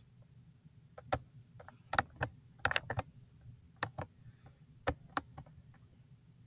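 Irregular sharp clicks of a computer mouse and keys, about fifteen in all, some in quick runs of two or three.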